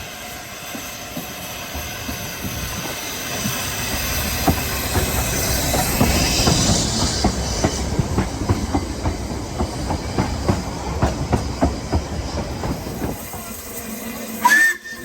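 Narrow-gauge train running past, its wheels clicking over the rail joints in a steady rhythm, with a hiss as it comes closest. A brief, loud, high-pitched squeal near the end.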